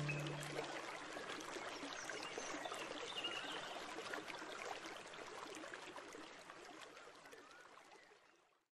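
A small stream running and trickling, with a few faint bird chirps, fading out steadily to silence near the end. The last low note of the music dies away in the first second.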